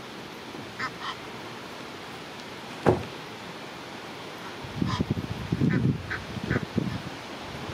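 Egyptian geese giving a few short, hoarse calls, a pair about a second in and several more later on. A single sharp knock, the loudest sound, comes nearly three seconds in, and a stretch of low rumbling noise runs through the second half.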